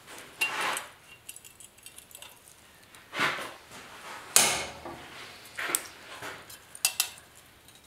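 Locking pliers and a sheet-steel patch being handled on a workbench: a handful of separate metallic clinks and clatters.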